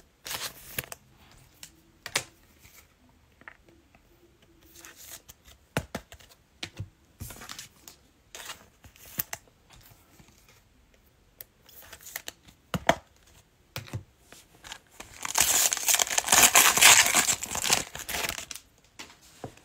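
Plastic cello-pack wrapper of a Panini Mosaic football card pack crinkling in the hand in scattered short crackles. About fifteen seconds in, it is torn open in a loud rip lasting about three seconds.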